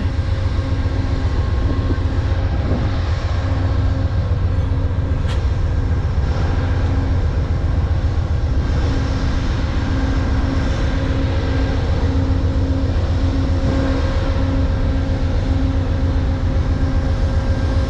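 GE P42DC diesel-electric passenger locomotive running while standing at the platform, a steady deep engine rumble with a hum that breaks on and off.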